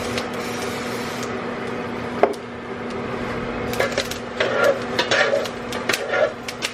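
Jalapeños crackling and popping in a very hot, smoking skillet: scattered sharp pops, busier in the second half, over the steady hum of kitchen exhaust fans.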